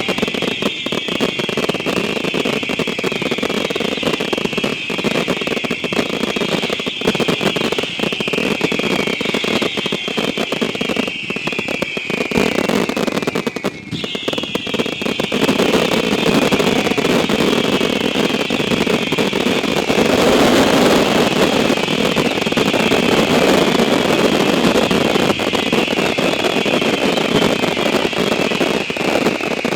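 Dense barrage of whistling consumer fireworks: many shrill whistles overlapping and falling in pitch, over a steady crackle. There is a short lull about fourteen seconds in.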